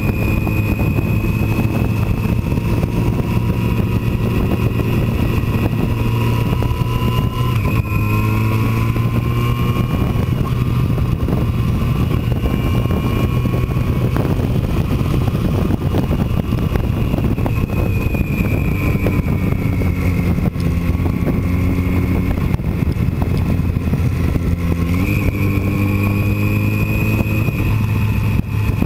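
Motorcycle engine running at steady road speed, heard from on the bike with constant wind and road rush; its pitch shifts about eight seconds in and climbs quickly a few seconds before the end as the throttle opens.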